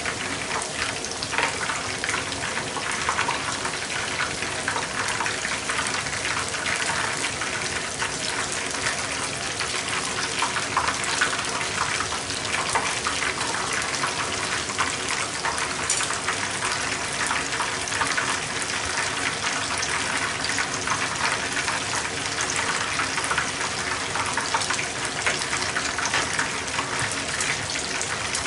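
Battered shrimp tempura deep-frying in hot oil in a small frying pan: a steady, dense sizzle with many fine crackles.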